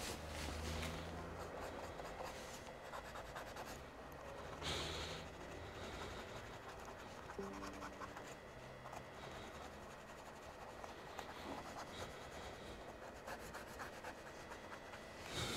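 Cotton swab dampened with alcohol scrubbing the bare mechanism under a laptop's removed TrackPoint buttons: faint, irregular scratching and rubbing, done to clean out the suspected liquid residue that makes a button stick.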